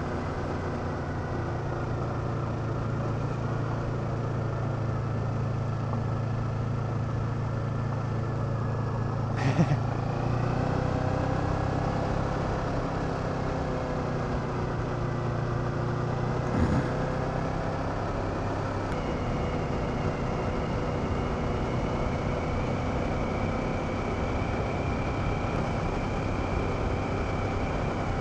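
Kawasaki Ninja 650R's parallel-twin engine running steadily while ridden on a gravel road, its pitch shifting about a third of the way in and again past halfway. Two short knocks stand out, one just before the first shift and one past halfway.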